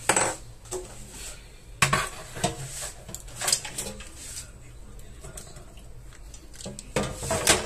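An air fryer basket and a spatula knocking and clattering against a plate and a wooden cutting board: a few sharp knocks, a second or so apart, with a quiet stretch before a last clatter near the end.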